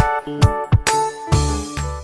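Background music with a steady beat and keyboard-like notes.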